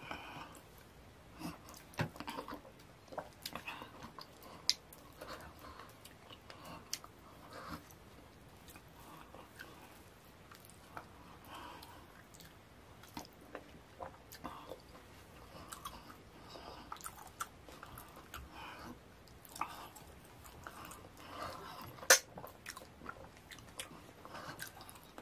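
Wet, sticky eating sounds of fufu and slimy ogbono soup: fingers squishing the fufu and dragging it through the stringy soup, with chewing and mouth smacks. The sounds come as irregular clicks and squelches, the sharpest near the end.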